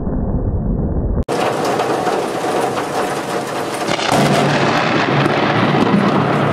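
Thunder rumbling in the wake of a lightning strike, cut off abruptly about a second in. Then a steady storm noise of rain and wind, louder from about four seconds in.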